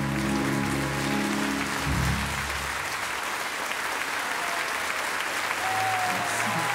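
Crowd applauding steadily while the last held chord of a tenor and choir song, amplified through the stage speakers, dies away over the first two to three seconds.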